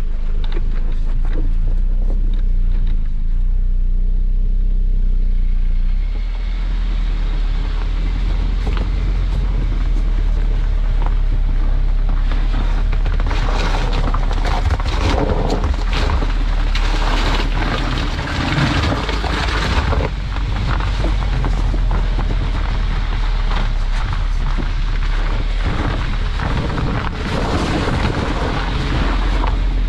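A vehicle engine running, heard close from underneath the vehicle, steady for the first six seconds or so. Then a loud rushing, crackling noise builds as the Falken Wildpeak AT Trail all-terrain tyres churn through sand and throw up grit. This noise is loudest in the middle and again near the end.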